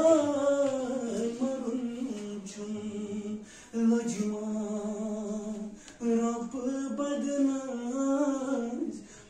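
A man singing unaccompanied, holding long, gently wavering notes in three phrases with short breaks between them.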